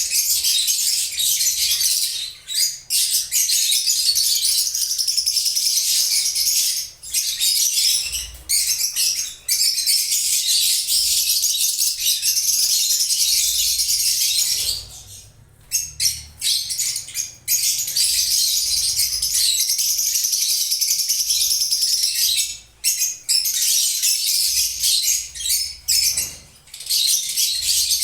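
Lovebirds chirping in a dense, high-pitched chatter that goes almost without a break, pausing briefly several times, the longest pause about halfway through.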